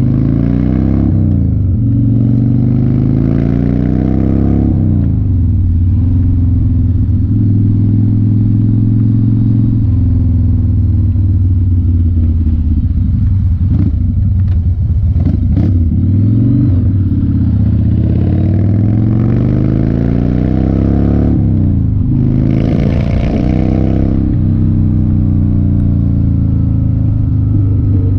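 1993 Harley-Davidson FXR's Evolution V-twin running on the road, its pitch climbing as it accelerates and dropping sharply at each gear shift, four times over, with steady cruising in between.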